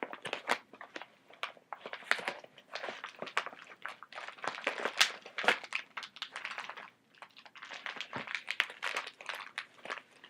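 Packaging being torn open and handled: irregular crinkling and crackling of wrapping as a delivered parcel is opened.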